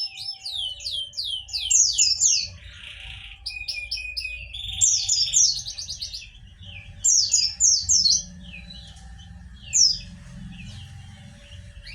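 A white-eye (pleci) singing: fast runs of high, sharply falling chirps, given in several bursts with short pauses between them.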